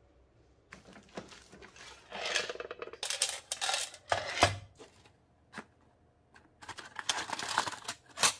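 Handling noise: plastic project boxes clattering as they are picked up and set down, then LED chip boards clinking against each other as they are sorted in a cardboard box.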